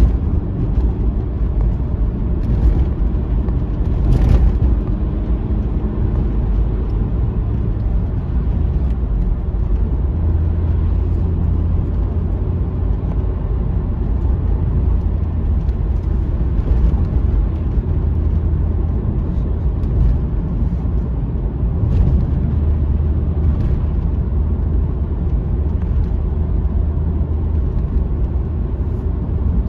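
Honda Civic Type R FN2 heard from inside the cabin while being driven: a steady low rumble of engine and road noise. A brief click about four seconds in.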